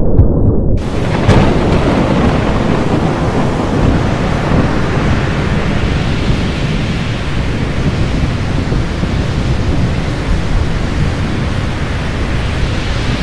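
Stock thunderstorm sound effect of a channel intro: a loud, steady rush of storm noise over a deep rumble of thunder. The high hiss cuts in abruptly under a second in, with a sharp crack just after.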